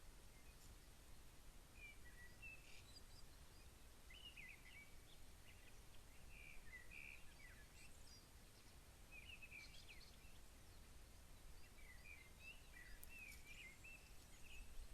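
Faint, scattered bird chirps and short calls over a low, steady background rumble and hiss.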